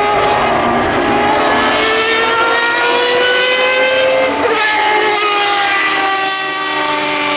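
Judd GV10 V10 engine of a 1992 Lola T92/10 Group C racing car at high revs, its pitch climbing steadily for about four seconds, dropping suddenly, then running high again and easing slightly downward.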